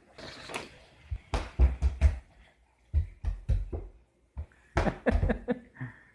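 Toy cars and plastic track pieces knocking and clattering, in three bunches of quick knocks.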